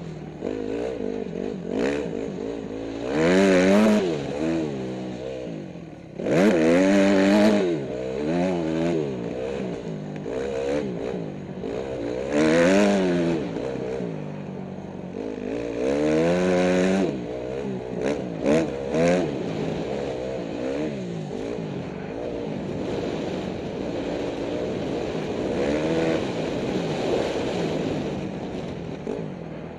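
Motocross dirt bike engine revving hard and easing off as the rider works the throttle and gears around the track, its pitch climbing and falling with several loud high-rev surges. Heard from a camera mounted on the bike.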